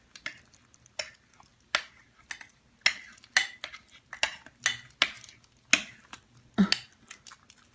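Kittens eating from a food dish: sharp, irregular clinks of kibble and teeth against the bowl, about two a second.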